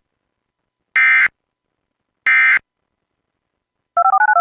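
Emergency Alert System end-of-message data bursts: two short, harsh, identical buzzing blasts about a second apart, closing out the three-burst EOM code. Near the end, a quick string of touch-tone (DTMF) tones stepping from note to note.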